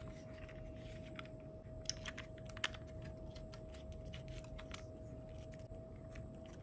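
Light clicks and handling of a plastic compact 35 mm film camera as a film cartridge is fitted into its open back, with a few small clicks about two seconds in, over a faint steady hum.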